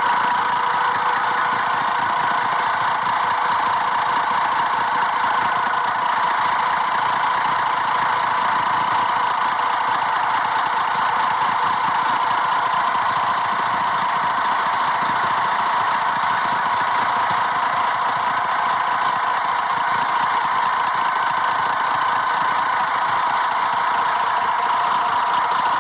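Mercedes-Benz engine idling steadily, with no revving.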